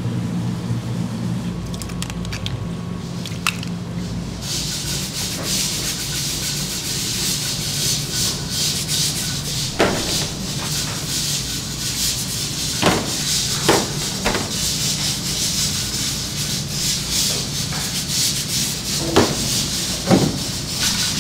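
A steady low hum, then from about four seconds in a continuous rubbing, scraping noise with a few sharp clacks.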